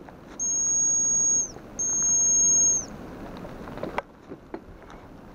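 Hazel grouse whistle lure blown as two long, high, steady whistles about a second each, each dipping slightly at its end. It is a simplified two-note call on a lure gone out of tune over winter, which the caller supposes mimics the hen's simpler song.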